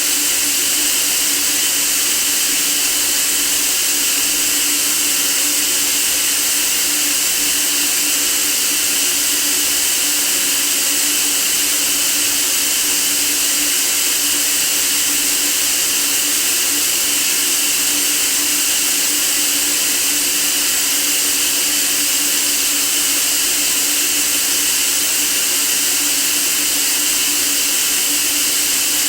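Steady, unchanging white noise for sleep: an even hiss, strongest in the treble, with a faint low hum underneath.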